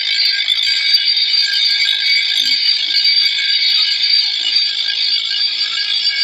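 Electric grinder's abrasive wheel grinding the steel edge of a long bolo knife, a steady high-pitched grinding screech.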